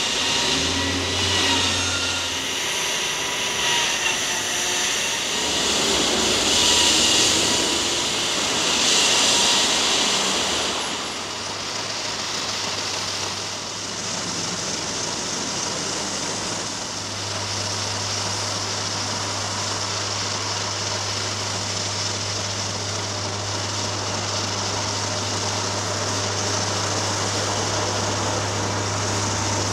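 Diesel engines of heavy construction machinery running, with a steady low engine drone that settles in after about ten seconds and grows stronger a few seconds later.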